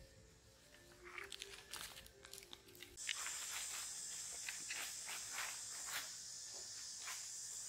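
Steady high-pitched drone of insects in the forest canopy, starting abruptly about three seconds in, with irregular sharp crackles and clicks over it; before that, only faint scattered clicks.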